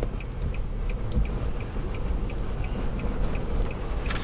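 Steady low rumble of a vehicle cabin, with a light, even ticking about four times a second and a single sharp click near the end.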